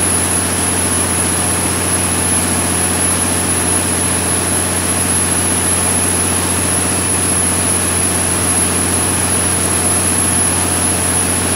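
Cummins QST30 V12 diesel engine of a 750 kW generator set running steadily under its own governor, producing rated output voltage. It is a loud, even drone with a thin steady high whine above it.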